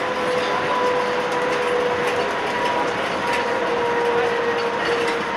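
Tateyama Tunnel Trolleybus running at steady speed through the tunnel, heard from inside the cabin: a constant running and tyre noise with a held whine from its electric drive.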